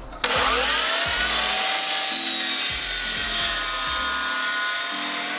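Miter saw spinning up and cutting through a Trex Transcend composite top rail, a steady whine over the cutting noise, starting suddenly about a quarter second in and running on past the end.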